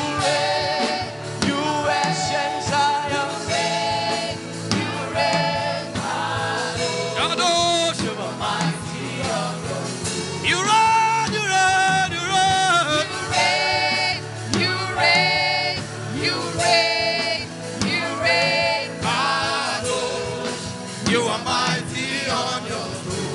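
Gospel worship music: singing with wavering, melismatic vocal lines over a steady keyboard and band accompaniment.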